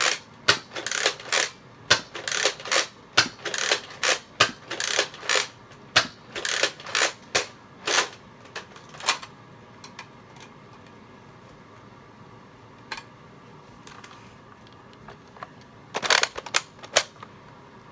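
Nerf Zombie Strike Scravenger, a pump-action foam-dart blaster, being pumped and fired repeatedly: a quick run of sharp plastic clacks and dart shots, about two a second, for the first nine seconds. One lone click follows, then a short burst of clacks near the end.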